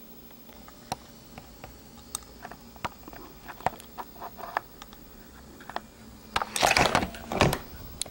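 Small metal parts of a phoroptor's forehead rest mechanism handled by hand: scattered light clicks and taps, then a louder scraping rustle for about a second and a half near the end.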